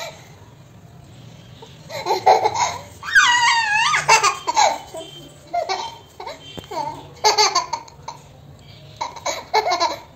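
A toddler laughing in repeated short bursts that start about two seconds in, some of them high-pitched giggles.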